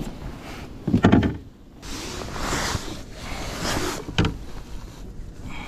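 Handling noises in a kayak as a freshly caught perch is taken from the landing net and laid on a metal measuring board: a heavy knock about a second in, two spells of rustling and scraping, and a sharp click a little after four seconds.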